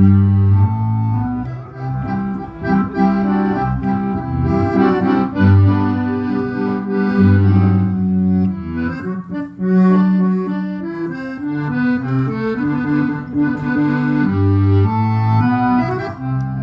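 Music led by an accordion, held chords and melody notes over low bass notes that change every second or so.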